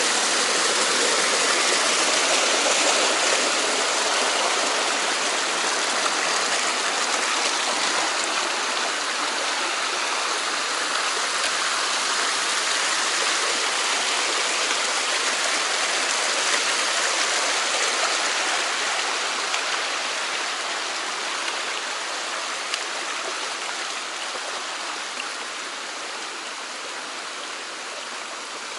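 Mountain stream running steadily, a dense rush of water that grows quieter over the last ten seconds.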